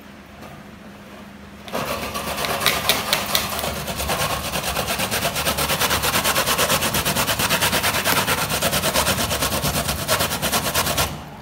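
Dry coconut being grated on a stainless-steel box grater: rapid, even rasping strokes that start about two seconds in and stop just before the end.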